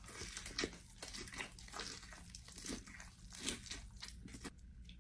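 A person chewing crunchy food: a faint, irregular run of crunches and soft mouth smacks.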